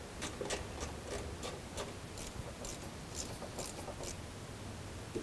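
Nylon zip tie being tightened around an ABS sensor wire, its ratchet giving a string of short, irregular ticks at about two to three a second.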